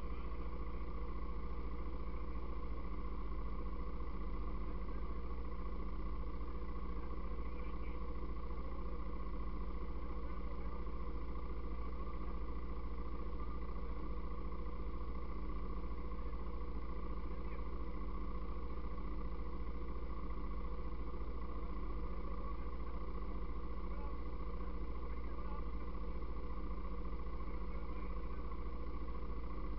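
ATV engine idling steadily, a constant drone with no revving or change in pace.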